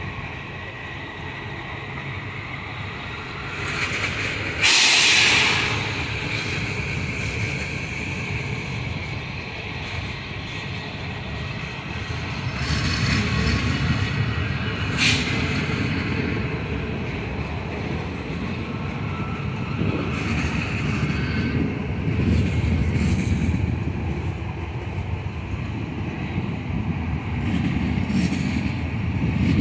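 PKP Intercity passenger carriages rolling past on the track, with a steady low rumble of wheels on rails. A brief loud hiss comes about five seconds in, and shorter bursts of noise follow later.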